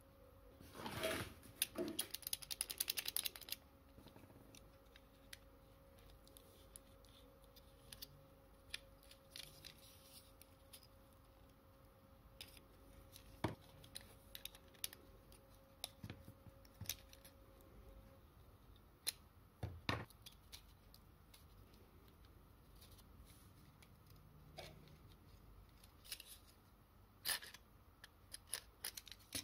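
Small metal parts of a tin toy car clicking and clinking as they are handled: a wire axle assembly and wheels being fitted to a pressed-tin chassis. A quick run of rattling clicks comes about a second in, then scattered single taps and clicks.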